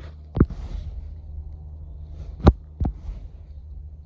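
Knocks and bumps from the camera being handled and aimed on its mount: a sharp knock about half a second in, then a louder one and a smaller one close together past the middle, over a steady low hum.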